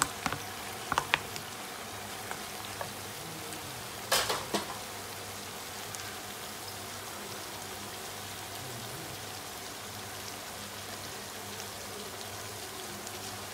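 Lamb and freshly added chopped tomatoes frying in a pan with a steady sizzling hiss. A few sharp clicks of the wooden spatula and plate against the pan in the first second or so, and a brief louder clatter about four seconds in.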